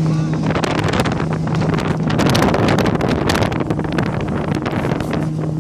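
Motorboat engine running at a steady pitch, partly masked by heavy wind buffeting on the microphone.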